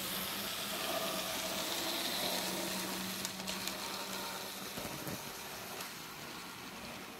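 N scale model train, an Atlas USRA 2-8-2 light Mikado with freight cars, running on the layout track: a steady hissing rattle of small wheels with a low motor hum, fading slowly as the train pulls away, with a few faint clicks about halfway through.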